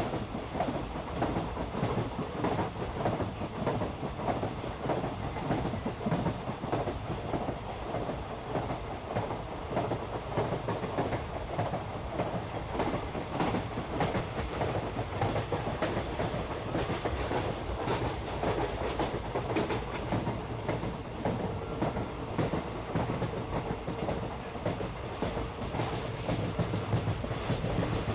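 Park toy train running along its track, its wheels clacking and carriages rattling steadily without a break.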